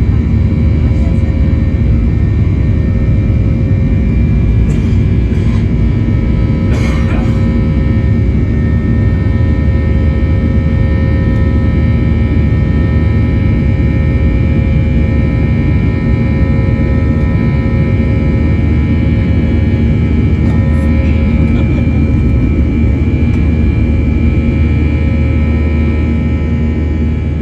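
Boeing 737-800 cabin noise: a loud, steady roar from the CFM56 jet engines and airflow, with a steady multi-tone buzz riding on top. It fades out near the end.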